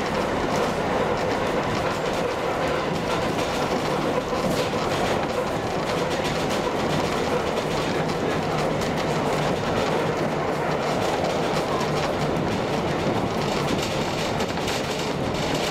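Heritage train on Roslagsbanan's narrow-gauge electric line running steadily, heard from on board: a continuous rumble and rattle of the wheels on the rails, with occasional clicks from the track.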